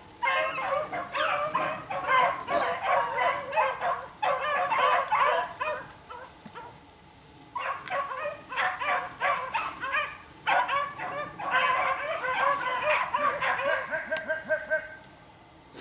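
Beagles baying and yipping in quick runs of high-pitched barks, with a pause about six seconds in.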